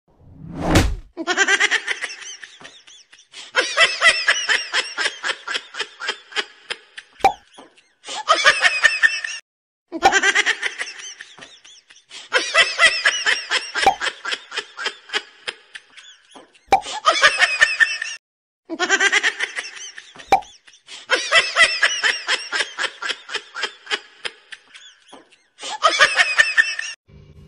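High-pitched giggling laughter laid over the clips as a laugh track. It comes in repeated fits of quick 'ha-ha' pulses, and the same laugh returns about every nine seconds. It opens with a short falling whoosh.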